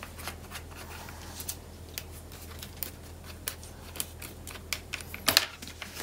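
Scattered light clicks and taps of hands handling paper and craft supplies on a cutting mat, with a louder clatter a little past five seconds in.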